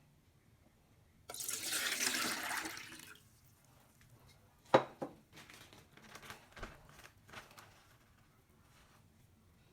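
Water poured into a bowl for about two seconds, starting suddenly and tailing off. A sharp knock follows, then a few lighter knocks and clicks, like utensils on a bowl.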